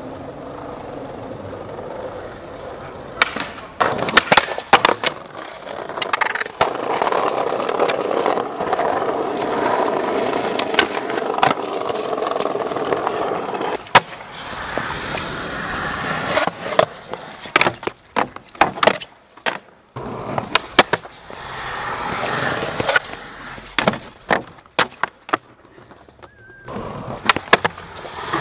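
Skateboard wheels rolling over pavement with a steady grinding noise, broken by many sharp clacks of the board being popped and landing, in flurries several seconds in and again through the second half.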